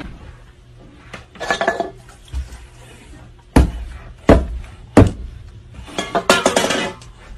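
Hard hits and clatter of a flat black object swung down at a soda can on a tabletop. There are three loud hits a little under a second apart in the middle, with rattling clatter before and after them.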